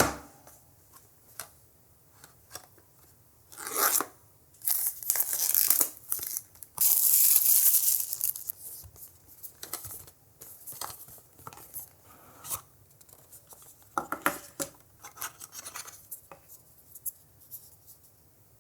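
Packaging of a pair of wireless earbuds being opened by hand: several bursts of tearing and rustling, the longest and loudest near the middle, between light clicks and taps.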